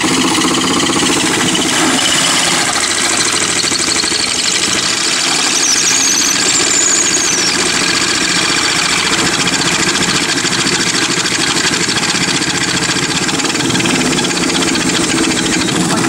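Electric drill running steadily under load, its bit cutting through the sheet-metal face of a homemade solar air furnace into the foam and plywood behind. A brief high squeal is heard about six seconds in.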